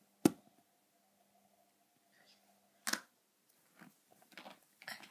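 Two sharp clicks about two and a half seconds apart, the first much the loudest, then a few softer taps and rustles near the end, over a faint steady hum.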